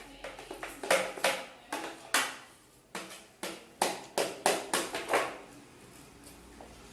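A quick run of about a dozen sharp knocks and taps from mixing the slime ingredients, fading to quiet for the last second or so.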